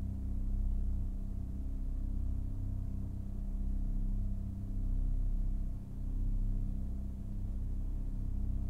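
A low, steady humming drone that swells and fades every second or so.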